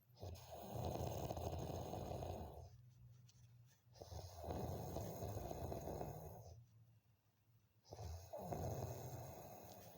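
Someone snoring: three long snores about four seconds apart, each fading away before the next.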